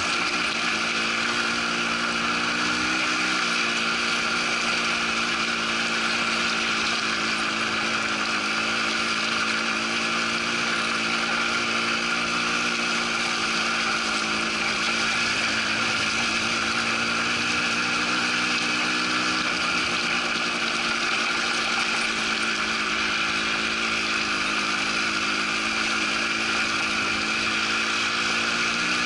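Quad bike engine running steadily while riding a gravel track, its pitch shifting slightly a couple of times, with the hiss of tyres and wind.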